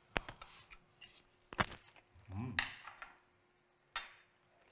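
Metal spoons and forks clinking and scraping against ceramic bowls as people eat, with a few sharp clinks, the loudest about a second and a half in. A short murmur from one of the eaters comes near the middle.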